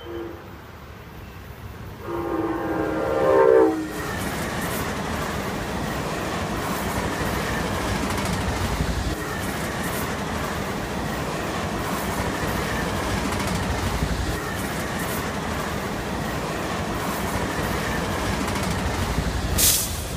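Amtrak Cascades Talgo passenger train sounding one long horn blast about two seconds in, then passing close by: a steady rush of wheels on rail with a regular clickety-clack from the cars. A sharp knock sounds just before the end.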